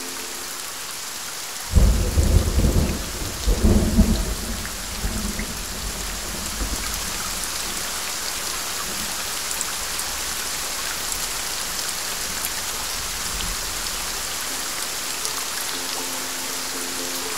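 Steady rain hiss. About two seconds in a clap of thunder breaks, peaks again a couple of seconds later, and rolls off into a low rumble that dies away over about ten seconds.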